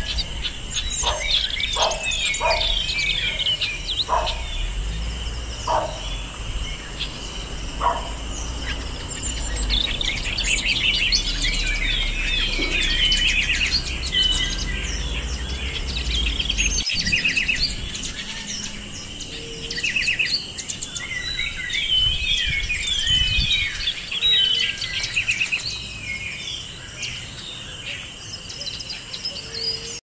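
Small songbirds chirping and twittering in quick, overlapping calls, busiest from about a third of the way in. A steady high buzz runs underneath, and a few short, lower-pitched calls come in the first several seconds.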